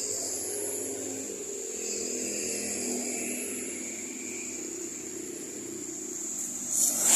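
Road traffic on a wet road: a heavy vehicle's engine drones steadily, then a loud rush of tyre noise builds near the end as a vehicle passes close.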